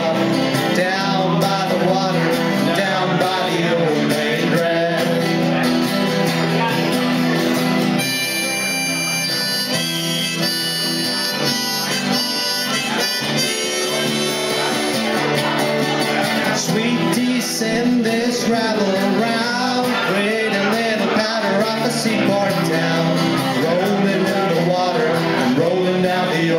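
Live acoustic music: two acoustic guitars strummed in a steady rhythm, with a harmonica playing a lead line and a man singing.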